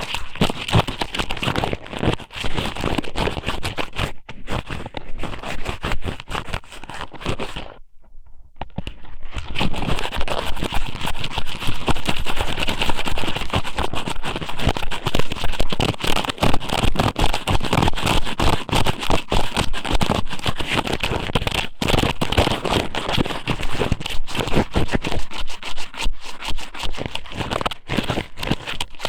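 Strips of raw squid (squid somen) pushed and rubbed against the ear of an ASMR microphone, giving close, dense crackling and scraping, with a brief pause about eight seconds in.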